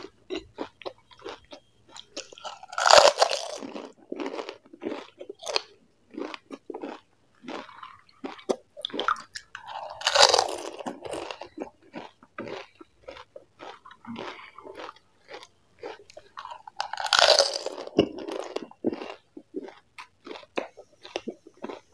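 Close-miked crunching and chewing of pani puri: crisp fried puri shells filled with spiced water cracking between the teeth. There are many small crunches, with three louder, longer bursts about seven seconds apart as each whole puri goes into the mouth.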